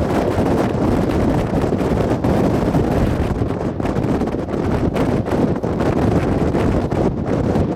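Strong gusty wind buffeting the microphone: a loud, rumbling rush that swells and eases with the gusts.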